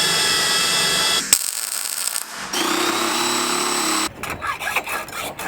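A power tool running in bursts: a steady run that stops with a sharp click just over a second in, then a spin-up with rising pitch that runs steadily and cuts off about four seconds in, followed by irregular knocks.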